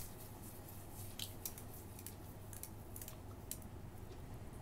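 Faint gritty scratching and crackling of a sugar-coated tomato half rubbed over the skin of the face, in scattered short scrapes, over a low steady hum.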